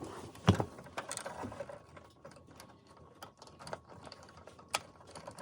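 Irregular light clicks and taps of plastic dashboard parts being handled during an instrument cluster swap, with a louder thump about half a second in and a sharp click near the end.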